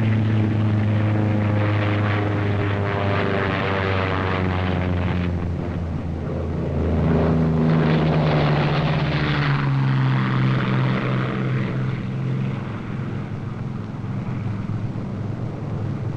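Propeller airplane's piston engine droning as it flies past, its pitch sliding down. A second, louder pass comes about seven seconds in, and its pitch also drops as it goes by.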